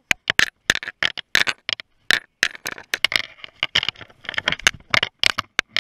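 Mountain bike rattling down a rough, rocky dirt downhill trail: a rapid, irregular string of sharp clicks and knocks as the bike hits bumps and rocks, with trailside brush scraping past.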